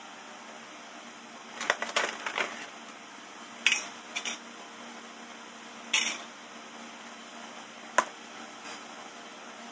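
Small parts being set down on a workbench: a perforated metal mesh strip and loose washers clatter, with a few short knocks, and a small tub is put down with one sharp knock near the end. A low steady hum runs underneath.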